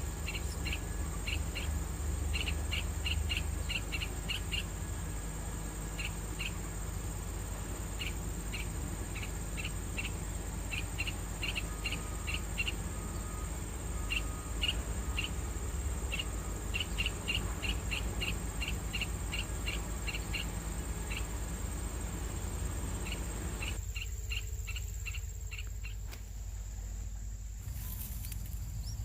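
Insects chirping: short high chirps in quick runs of several, pausing now and then, over a steady high insect whine and a low background rumble.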